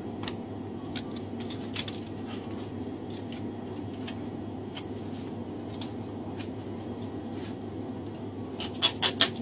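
Butcher's knife deboning a leg of meat: scattered light metallic clicks and scrapes as the blade works along the bone, with a quick run of sharper clicks near the end. A steady low hum lies underneath.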